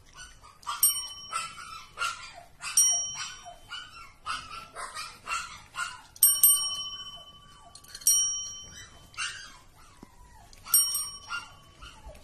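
Metal desk call bells struck by cats' paws: about five bright dings, each ringing on for a moment, one near the middle held for over a second. Between the dings come many short, high mews that fall in pitch.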